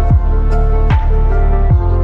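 Background electronic music: sustained synth chords over a steady deep kick drum about every 0.8 seconds, with light high ticks between the beats.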